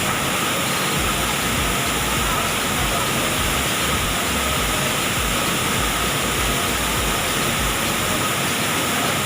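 Steady roar of a waterfall, water rushing without a break.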